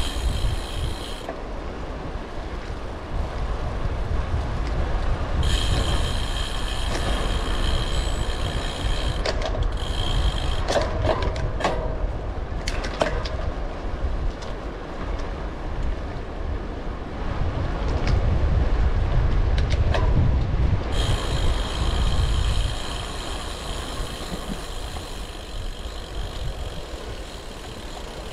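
Wind rushing over the microphone of a moving bike, heard as a steady low rumble. A high whirring comes in twice, for a few seconds each time, and a few short clicks fall near the middle.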